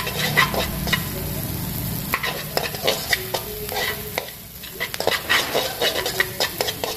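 Sliced lemongrass and chilli sizzling in hot butter and oil in a metal wok, stirred with metal tongs that tap and scrape against the pan many times, with a brief lull about four seconds in.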